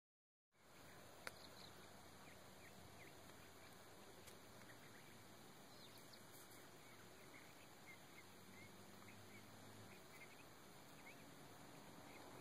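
Near silence: faint steady outdoor hiss with scattered short bird chirps and one sharp click about a second in.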